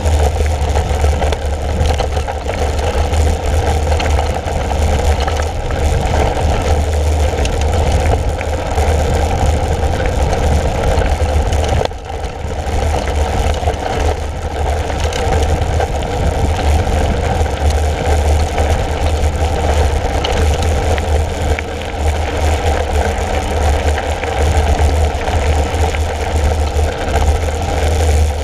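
Mountain bike rolling steadily along a dirt and gravel track, with tyre noise and wind rumbling on the handlebar camera's microphone.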